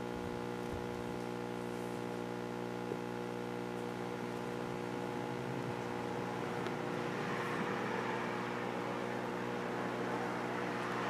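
Steady hum made of several fixed tones. A rushing noise swells from about halfway through and stays up near the end.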